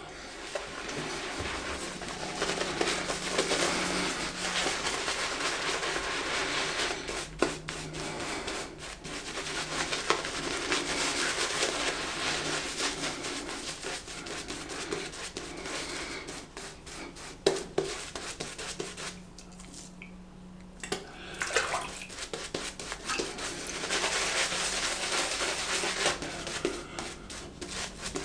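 Shaving brush working Cella shaving soap lather onto a stubbled face: a continuous wet swishing and rubbing of the bristles, with a short break about two-thirds of the way through.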